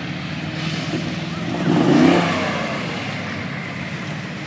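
Off-road vehicle's engine revving while it sits bogged down in deep mud, the revs rising to a peak about two seconds in and then easing back.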